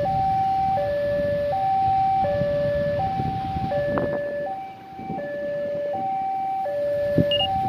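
Railway level-crossing warning alarm sounding, a steady alternation of a higher and a lower tone, each held about three-quarters of a second, the signal that a train is approaching. A low rumble of road traffic lies beneath it.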